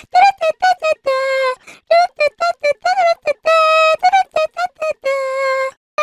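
The anime girl meme voice singing high-pitched 'da da da' syllables in quick short notes, with a few longer held notes in between.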